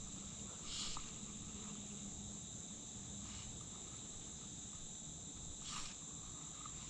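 Steady high-pitched insect chorus, with two short swishes about five seconds apart.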